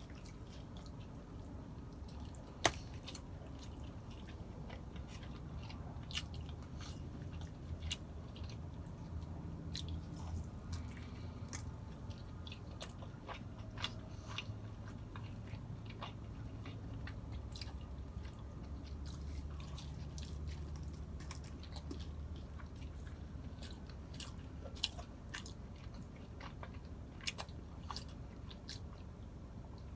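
A person chewing and biting food close to the microphone, with small wet mouth clicks scattered throughout and a sharper click about two and a half seconds in.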